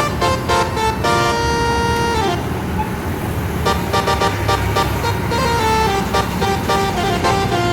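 Bus 'telolet' horn: a multi-tone air horn playing a short tune of held notes, one note sliding down in pitch a little over two seconds in, over a steady engine rumble.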